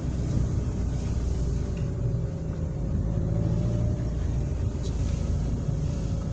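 Car engine and road noise heard from inside the cabin as the car drives: a steady low rumble.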